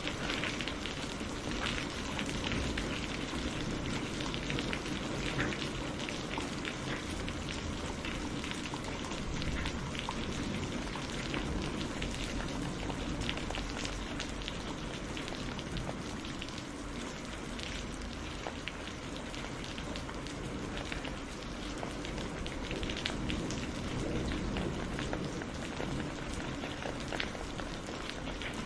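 Steady rain falling, with many close drops pattering on a surface.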